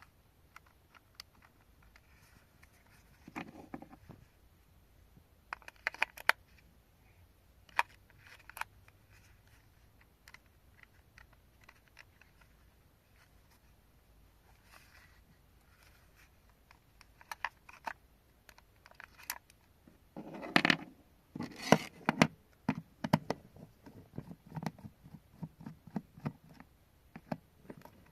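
Hands and tools working on a small plastic toy phone: scattered clicks, taps and scrapes, coming thickest in a run of handling noise about twenty seconds in.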